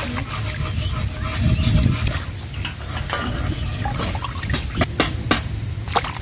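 Water sloshing and splashing as cut hilsa fish pieces are rubbed clean by hand in a steel basin of water. Several sharp splashes come near the end as pieces are dropped into a clay bowl of water.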